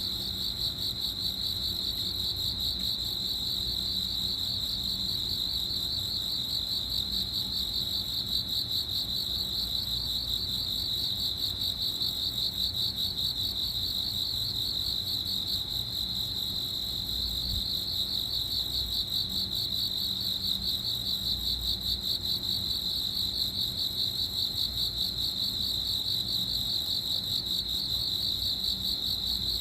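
Crickets chirping in a continuous, high-pitched, rapidly pulsing trill that never breaks.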